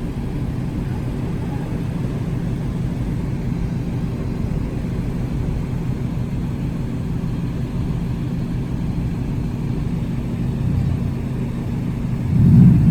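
Car engine running steadily at low revs, then revving up louder near the end as the tow car takes up the strain to pull a stuck car out of soft sand.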